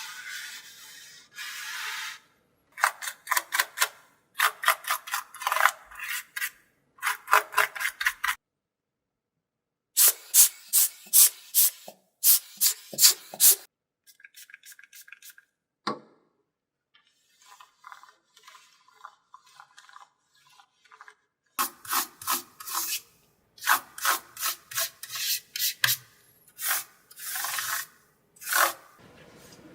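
Rubbing strokes of cleaning a laptop keyboard and touchpad, in quick runs of several strokes with pauses between them.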